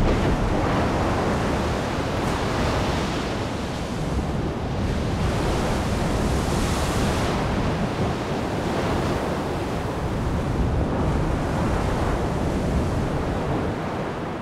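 Shallow undersea volcanic eruption breaking the sea surface: a continuous churning, rushing water noise with a deep rumble as magma meets seawater and blasts up spray and steam. The hiss swells for a couple of seconds around the middle.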